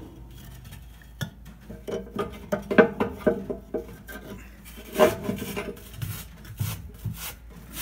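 Firebricks being shifted by hand in a steel firebox: scraping and scuffing, with a few sharp knocks as brick meets brick and metal. The loudest knock comes about three seconds in and another about five seconds in.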